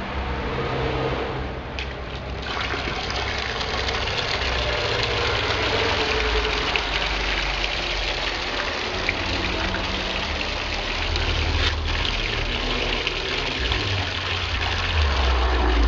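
Water gushing and splashing into a plastic bucket, a steady rushing hiss that grows stronger about two seconds in, with a low rumble underneath.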